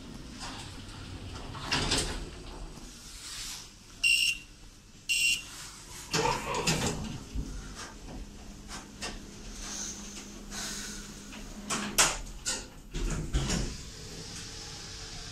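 Lift's electronic beep sounding twice, a second apart, followed by the car's automatic doors sliding open with a short motor whir, then a faint hum and a few sharp clicks and knocks, the loudest about 12 seconds in.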